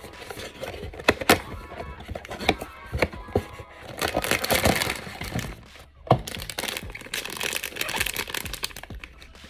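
A Pop Mart blind box being opened by hand: cardboard cracking and the inner foil bag crinkling and tearing, with many sharp clicks and a denser stretch of crackling about four to five seconds in.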